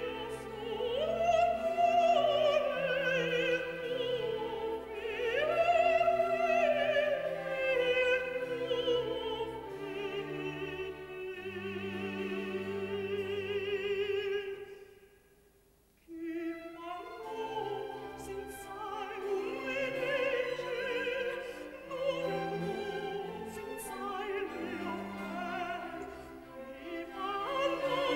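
Countertenor singing an operatic aria, holding long high notes with vibrato over orchestral accompaniment. The music breaks off briefly about fifteen seconds in, then starts again.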